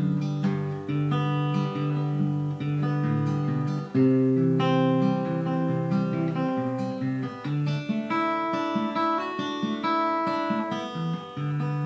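Solo acoustic guitar played without singing, strumming through the song's G, C and D chords as an instrumental break, with one louder strum about four seconds in.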